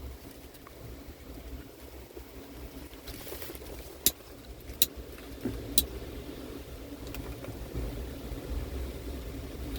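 Strong wind buffeting the microphone with a steady low rumble. Three sharp clicks come about four, five and six seconds in: a handheld lighter being clicked to spark it in the high wind.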